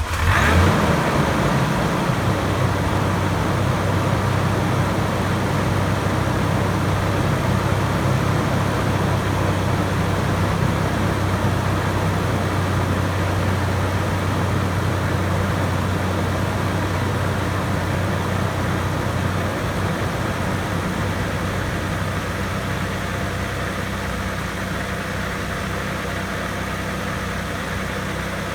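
Supercharged Toyota 1GR-FE 4.0 L V6 fitted with a Magnuson supercharger on a 2.4-inch pulley, idling steadily just after starting. The idle settles and gets slightly quieter toward the end.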